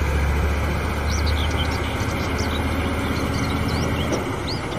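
Heavy truck's diesel engine running steadily with a low rumble as it hauls a Caterpillar excavator on a lowboy trailer. Birds chirp several times over it.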